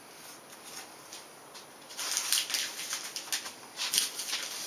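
Scratchy rustling and scraping of plastic contact paper being handled and trimmed on a foam wing, in short irregular bursts starting about two seconds in.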